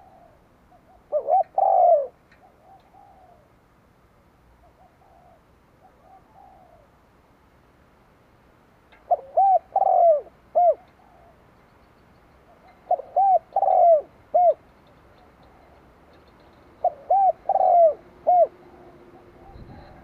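Spotted dove cooing: four phrases several seconds apart, each a few quick coos, a longer drawn coo and often a short closing coo, with softer coos in between.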